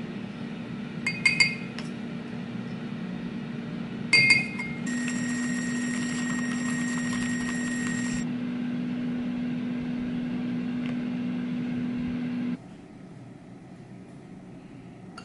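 Several sharp clinks of a spoon on a glass coffee jar and ceramic mug. Then a handheld electric milk frother runs in the mug, a steady motor whine for a few seconds, over a steady low hum that cuts off near the end.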